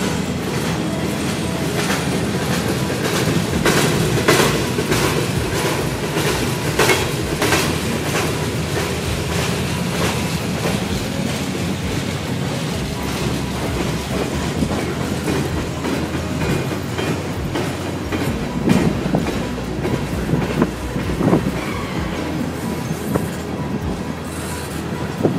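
Freight train's cars rolling past close by, the wheels clacking over the rail joints in clusters of sharp clicks, thickest in the first several seconds and again toward the end.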